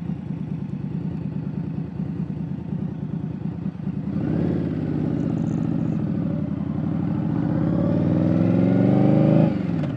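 Indian Scout Bobber Twenty's V-twin engine running under way, steady at first. About four seconds in it speeds up, its pitch climbing and growing louder for several seconds. Near the end it dips briefly, as at an upshift, then climbs again.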